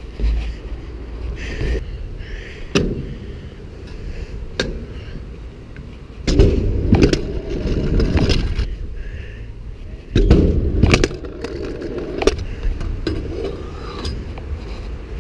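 Kick scooter wheels rolling over tarmac and skatepark surfaces, a continuous rumble that grows louder in two stretches, about six and ten seconds in. Sharp clicks and knocks of the deck and wheels come throughout.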